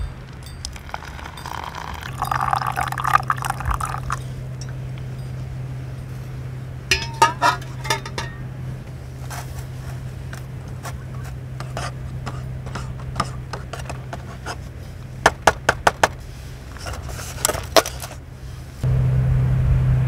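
Hot water poured from a stainless steel mess tin into a paper cup of instant corn soup for a few seconds, then a metal spoon stirring and clinking in short clusters of quick taps. A louder steady low rumble comes in near the end.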